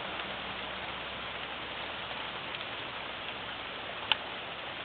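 Hailstorm: a steady hiss of hail and rain coming down on the ground and nearby surfaces, with scattered light ticks and one sharp click about four seconds in.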